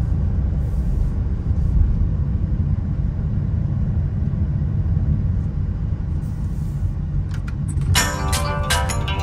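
Steady low rumble of a car driving along the road. Music starts about eight seconds in.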